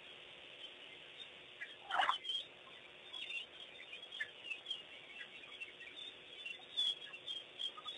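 Wild birds calling at dusk: a scatter of short chirps and twitters, with one loud call about two seconds in standing out above the rest.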